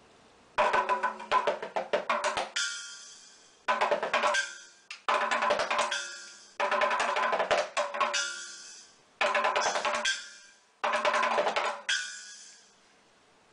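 Miniature desktop drum kit played with small sticks: quick, tinny rolls and fills across the little drums, in about six bursts with short pauses, most of them ending on a splash of the tiny cymbal.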